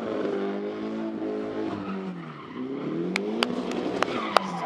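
Nissan Silvia S14's turbocharged SR20 four-cylinder revving up and down as the car drifts around the track, with tyres skidding, heard from trackside. A few sharp claps come in over it near the end.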